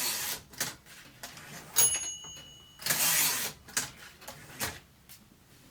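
Moskva-4 portable typewriter: a few key and mechanism clicks, then the margin bell rings once about two seconds in, signalling the end of the line. Right after it the line-space lever throws the carriage back with a rasping ratchet sweep, followed by a few more clicks.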